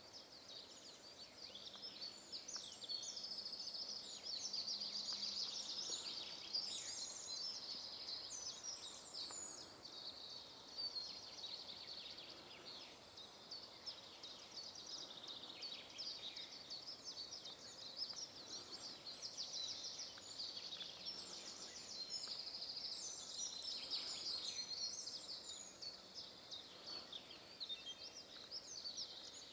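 Small songbirds singing, many thin high chirps and trills overlapping, busiest through the first ten seconds and again about twenty seconds in, over a faint steady outdoor hiss.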